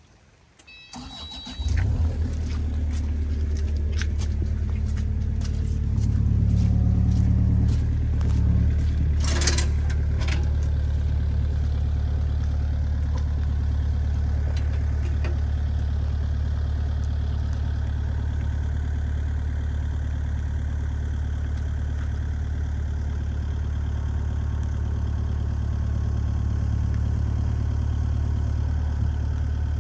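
An engine is cranked and catches about two seconds in, then runs at a steady idle, picking up briefly about six to eight seconds in. A short hiss or clatter sounds near ten seconds.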